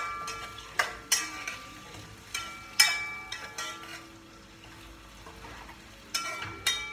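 A metal utensil knocking against a cooking pot during stirring, each knock ringing briefly: about eight clinks, several close together in the first few seconds, then a quieter stretch, then two more near the end.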